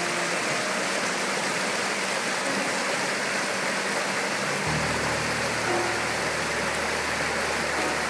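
Shallow stream rushing over rocks in small rapids, a steady rush of water. A soft, low held music tone comes in about halfway through.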